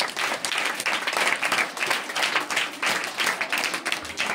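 A group of schoolchildren applauding, a dense run of many overlapping handclaps.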